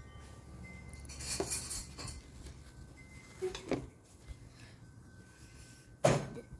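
Tableware at a meal: a few light clinks and knocks of a spoon, cup and plate, with a short rustle about a second in and the loudest knock near the end.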